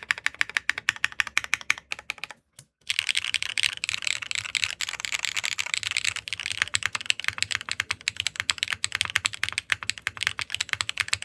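Typing test on a Sensy Supernova 60 custom mechanical keyboard built with a 4 mm PEI plate, PEI midframe, HMX PEI Bumblebee linear switches and DCS keycaps: rapid, dense keystroke clacks. The typing breaks off briefly a little over two seconds in, then resumes faster and denser.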